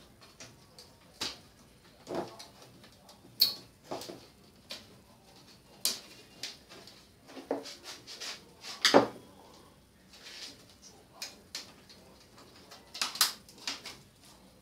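Irregular clicks, knocks and clatters of hands taking apart a flat-panel TV: cable connectors being pulled from the main circuit board and the board and plastic parts handled against the panel's metal back and the wooden bench. The loudest knocks come about three and a half and nine seconds in.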